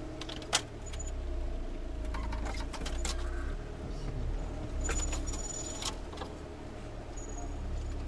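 Car driving slowly over rough ground, heard from inside the cabin: a steady low engine and road rumble with clusters of light jangling and rattling clicks.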